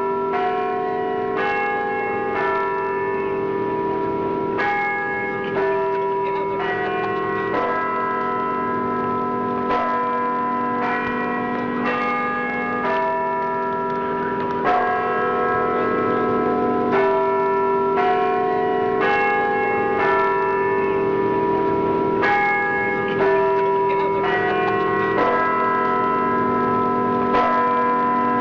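Bell chimes playing a slow melody, about one struck note a second, over a sustained low hum, heard as background music.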